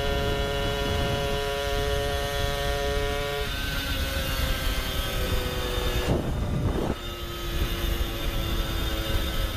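Puch Maxi Luxe moped's two-stroke engine running at speed through an expansion-chamber pipe, with wind rush over the microphone. Its pitch steps down about three and a half seconds in, and a brief rush of noise passes about six seconds in.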